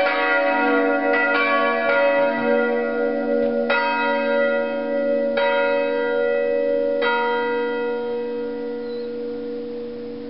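Full peal of four church bells cast by Grassmayr in 1947, tuned b'–d♭''–e♭''–g♭''. The strokes come further and further apart, the last about seven seconds in, then the bells' hum dies away as the peal ends.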